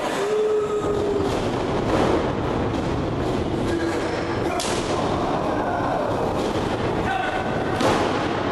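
Wrestling crowd in an echoing gymnasium shouting and cheering, with a few sharp thuds of bodies hitting the ring canvas, the loudest near the end.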